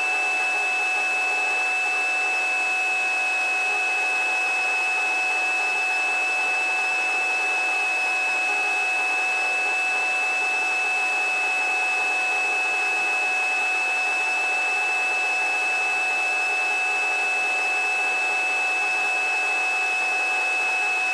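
Steady cabin noise of a small training helicopter in flight, heard through the headset intercom: a constant high whine over an even hiss.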